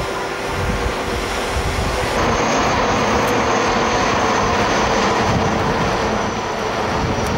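Helicopter flying past: a steady rush of turbine and rotor noise with a thin high whine, growing louder about two seconds in.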